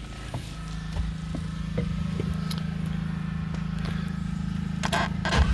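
Fuel-injected GM LS V8 idling steadily, with a few light clicks over it; the idle grows gradually a little louder.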